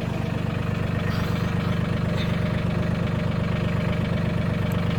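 Mahindra 1626 tractor's diesel engine idling steadily.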